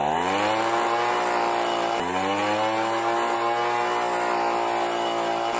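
Handheld leaf blower switched on: its whine spins up and rises in pitch over the first second, dips briefly about two seconds in, then runs steadily.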